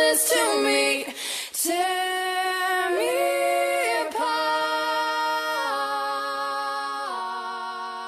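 Background song: a female voice singing long, drawn-out notes that step up and down in pitch, with little else behind it, slowly fading toward the end.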